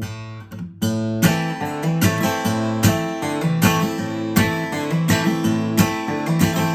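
Acoustic guitar played in a clawhammer-style hybrid fingerstyle: a chord rings for about a second, then a steady rhythmic pattern of alternating-thumb bass notes under struck chords, with sharp accents about twice a second.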